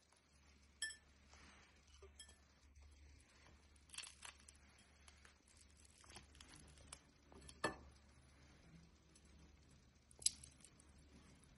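Near silence with a few faint tableware sounds: a short ringing clink about a second in, soft knocks around the middle, and a sharp tick near the end, amid light handling noises of bread being torn over a plate.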